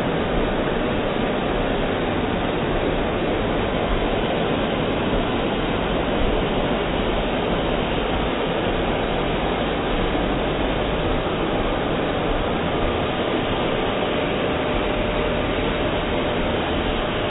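A hair dryer blowing a steady, loud rush of air.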